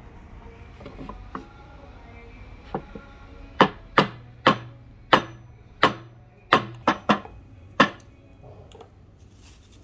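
A few light taps, then about nine sharp knocks over some four seconds, some in quick pairs, as the axe with its ebony handle is rapped butt-down on a hard block to seat the Keen Kutter axe head on the handle; several knocks leave a brief low ring.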